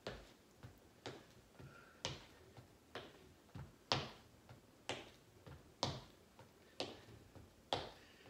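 Sneaker heel taps and steps on a wooden floor during a side heel-tap exercise: sharp light taps about once a second, with fainter steps between them.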